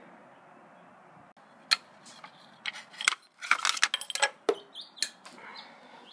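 Small metal parts and tools clinking and rattling as they are handled: a single sharp click, then a quick run of clinks around the middle and a few more after.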